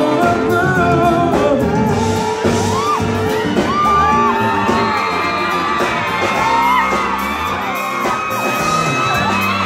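Live pop band playing amplified keyboard, electric guitars, bass and drums, with a male vocalist singing into a handheld microphone over it, echoing in a large room.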